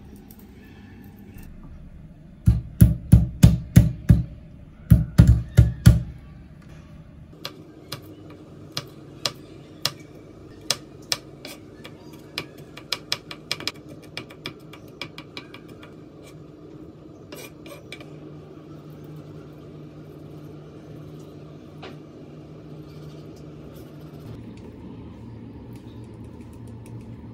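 Knife chopping garlic on a cutting board: two quick runs of heavy knocks a few seconds in, then lighter, evenly spaced taps, about two a second, that stop about sixteen seconds in.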